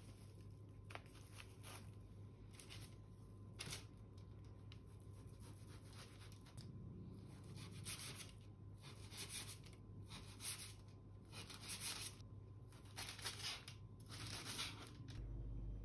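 Kitchen knife cutting thick-sliced pork belly into small pieces on a sheet of baking paper: faint, irregular cutting strokes with the paper crinkling under the blade, coming faster in the second half.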